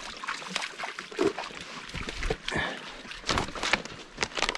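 Footsteps through thick swamp undergrowth: irregular snapping twigs and crackling, brushing branches.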